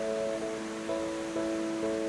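Background music: soft held chords that change about every half second, over a steady hiss.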